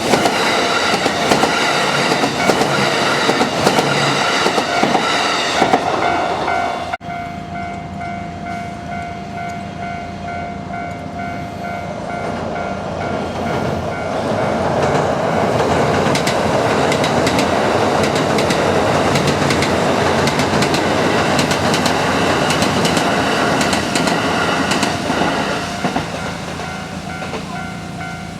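Kintetsu electric trains passing a level crossing, wheels clicking over the rail joints. Through much of it the crossing's warning bell rings in a steady pulsing tone. There is an abrupt break about seven seconds in, then a second train passes, loudest in the middle.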